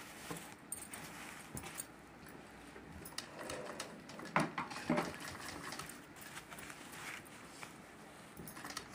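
Sewing machine stitching through layered fabric, running steadily, with a couple of sharper knocks about halfway through.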